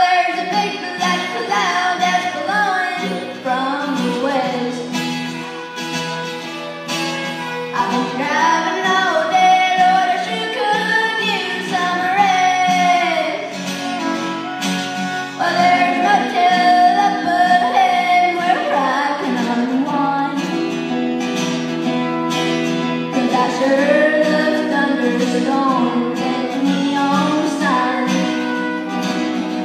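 Live traditional country music: acoustic guitars strumming under a fiddle, with sliding melodic lines throughout.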